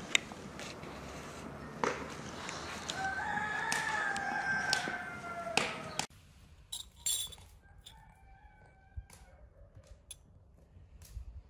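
A rooster crowing: one long call about three seconds in, dropping slightly in pitch as it ends. After a sudden change, a fainter crow follows, along with light clinks of a metal spoon against a glass jam bowl.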